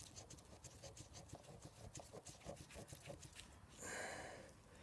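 Faint small clicks and taps of hands handling a brake pad and its fittings on a disc brake caliper. About four seconds in comes a short, breath-like rush of noise.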